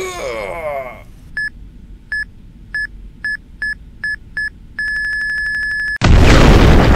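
Bomb countdown timer beeping, seven short beeps coming faster and faster, then one steady tone for about a second, cut off by a loud explosion near the end.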